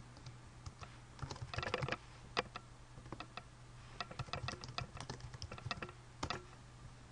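Typing on a computer keyboard: a short run of keystrokes about a second in, and a longer run from about four to six seconds, over a low steady hum.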